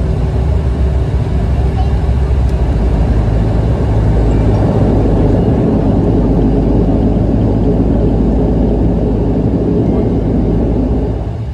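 Cabin noise of a Bombardier Dash 8 Q300 rolling out on the runway after landing: the turboprop engines and propellers running loud with a deep hum, swelling about four seconds in and easing off near the end.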